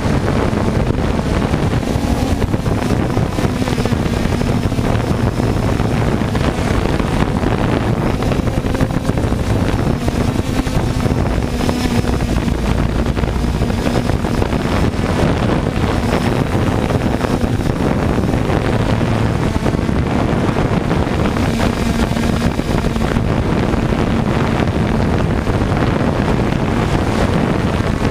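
Small camera drone in flight: steady rush of its propellers and wind on the onboard microphone, with a faint motor whine that wavers slightly in pitch.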